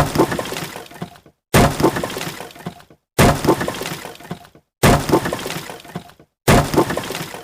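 Wood breaking: a sudden sharp crack trailing off into splintering crackles that fade over about a second. The same break repeats about five times, roughly a second and a half apart, with brief silence between.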